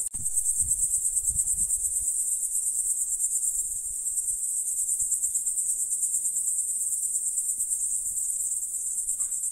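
A chorus of crickets in the roadside grass chirring continuously: a high, steady, rapidly pulsing sound that neither rises nor falls.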